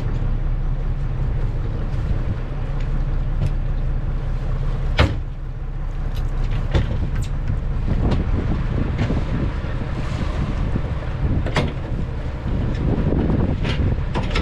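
Small fishing boat's engine running at idle with a steady low rumble, wind on the microphone, and a few sharp knocks on deck and rail as the buoy and line are hooked aboard.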